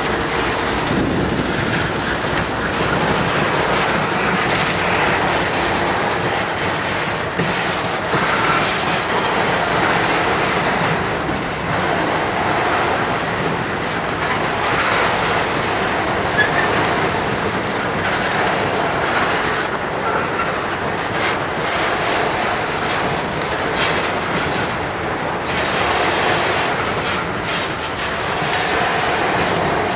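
Loaded CSX covered hopper cars of a long grain train rolling past close by: steady wheel-on-rail rumble with a continuous clickety-clack of wheels over rail joints.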